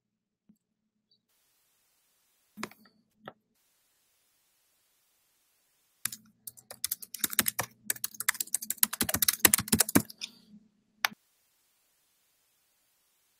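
Typing on a computer keyboard: two lone key clicks, then a quick run of keystrokes lasting about four seconds, and one last click.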